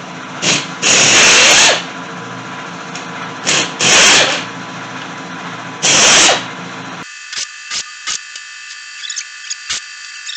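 Chicago Pneumatic air tool running in several short bursts over the first six seconds or so, backing out engine case bolts, followed by scattered light metallic clicks.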